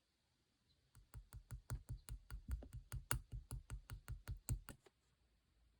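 Clear slime being played with by hand, giving an even run of about twenty sharp clicks or pops, roughly five a second, that stop a second before the end.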